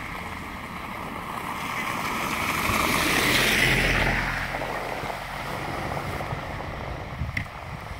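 A car passing on a slushy street: tyre hiss through the slush and a low engine hum swell to a peak about halfway through, then fade, over wind on the microphone. A short sharp knock comes near the end.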